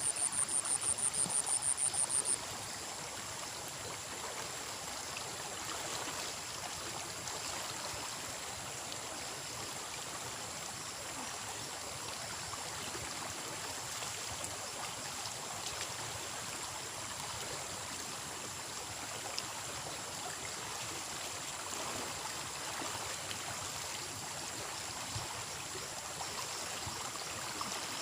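Steady rush of flowing water. A high, rapid pulsing trill of about eight pulses a second is on top at first and cuts off about two seconds in.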